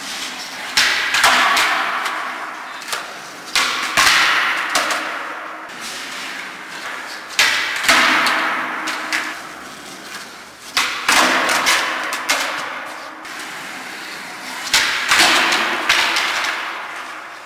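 Skateboards on a concrete parking-garage floor: about five sharp pops and landing slaps a few seconds apart, each followed by a rush of wheels rolling that fades away, echoing off the concrete.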